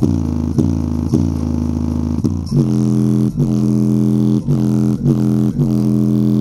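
JBL Flip 5 portable Bluetooth speaker playing a bass-heavy track at 90–100% volume in low frequency mode, its passive radiator pumping. A deep bass note repeats about twice a second, shifting to a different, fuller bass note about two and a half seconds in.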